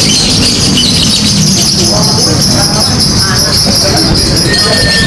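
Lovebird singing a long, unbroken high-pitched chattering trill (the "ngekek" song of contest lovebirds), over a steady rumble of crowd noise. A thin steady whistle joins about four and a half seconds in.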